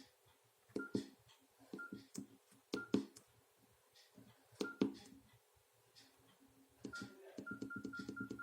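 Nokia mobile phone keypad being pressed. Each press is a click followed by a short key-tone beep: four single presses about a second apart, then a rapid run of beeps at about five a second near the end, as when stepping quickly through a menu.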